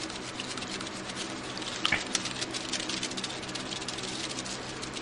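Wire-mesh strainer being swirled and rubbed around in a bucket of wet clay slip: a continuous scratchy rubbing with a few sharper scrapes, as the lump of grit and rock inside is rolled so the clay washes out through the mesh.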